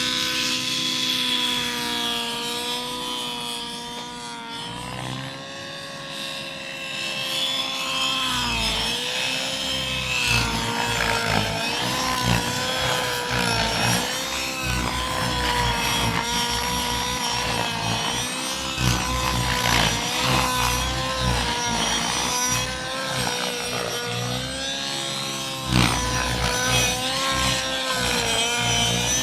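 RC model helicopter flying, its motor and rotor whine wavering up and down in pitch as it manoeuvres.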